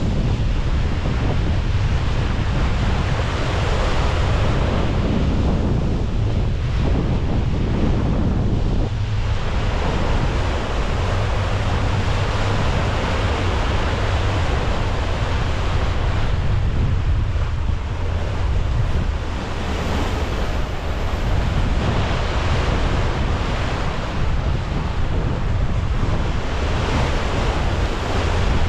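Wind buffeting the microphone in a heavy low rumble, over the rushing wash of sea water around the bow of a sailing ship under way. The wash swells and eases every few seconds.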